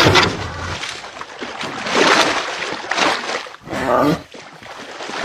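Water splashing heavily in bursts, with a short pitched cry about four seconds in.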